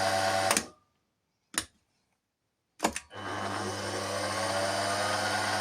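Benchtop mill's spindle motor running with its kill-switch bridged out. It cuts off about half a second in, then two switch clicks about a second apart. The motor starts again about three seconds in, its whine rising as it spins up, then runs steadily.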